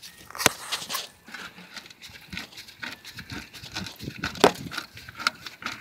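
A screwdriver prying and scraping at the old control arm's parts: irregular metal clicks and scrapes, with two sharper knocks about half a second in and near the end.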